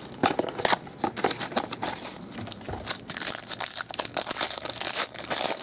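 Packaging of a trading card pack being crinkled and torn open by hand: an irregular run of sharp crackles.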